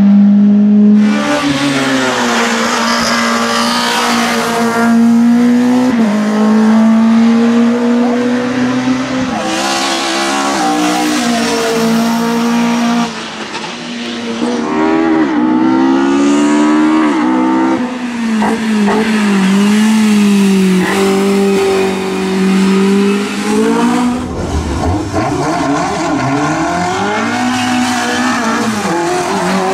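Racing car engines at full throttle, revving up and dropping back through gear changes, several cars in turn with the sound cutting abruptly from one to the next.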